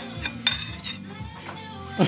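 A metal spoon clinking against a bowl while stirring a thick marinade sauce, with a few sharp clinks in the first second, over background music.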